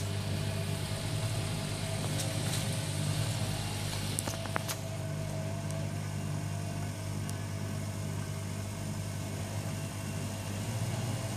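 AEG Lavamat 6410 washing machine running with a steady motor hum, a few light clicks about four seconds in.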